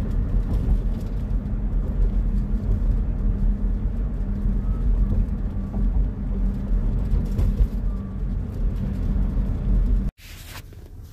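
Steady low rumble of a car's engine and road noise while driving. It cuts off abruptly near the end to a much quieter background.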